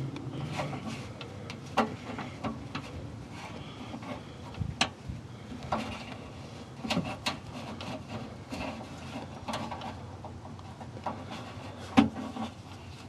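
Scattered clicks, knocks and rubbing of hands working inside an open car door frame, trying to get at the entry-light bulb socket without removing the bolt; the sharpest knock comes near the end.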